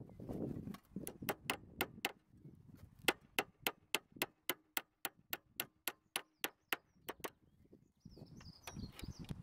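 Hammer driving a nail through the foot strap of a steel dry-ridge bracket and a timber lath into the roof truss beneath: a quick, even run of about twenty sharp strikes, roughly three a second, stopping about seven seconds in. Rustling handling noise follows near the end.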